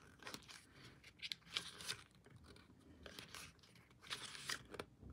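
Faint rustling of paper as the pages of a CD album's lyric booklet are turned by hand, a series of short swishes.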